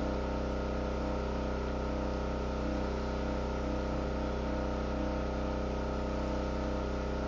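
Generator engine running steadily at constant speed, powering a pressure washer, with a steady low hum.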